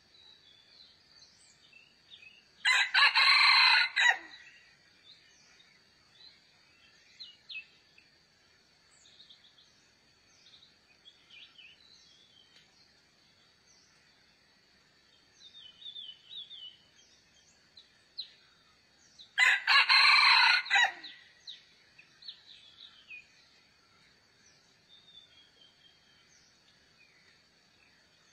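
Rooster crowing twice, each crow lasting about a second and a half, the second about sixteen seconds after the first. Small birds chirp between the crows over a steady thin high whine.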